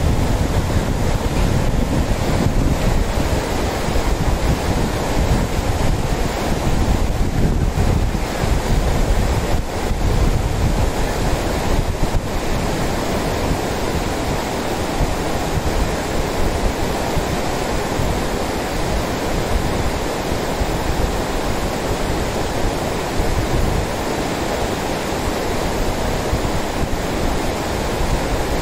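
Lidder River, a shallow glacial mountain river, rushing over a stony bed in white-water rapids: a loud, steady roar of water. Wind rumbles on the microphone, strongest in the first half.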